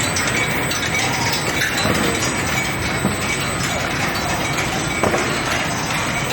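Steel ball hot-rolling production line running: a loud, steady mechanical clatter with scattered metallic clinks.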